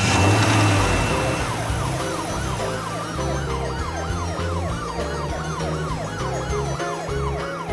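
Cartoon siren sound effect: a quick wail rising and falling about two or three times a second, over background music. A crash opens it at the very start.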